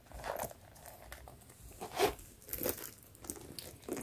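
Faint rustles and crinkles of a Coach mini Rowan, a small leather zip bag holding cards and cash, being handled by hand, in several short bursts, the loudest about two seconds in.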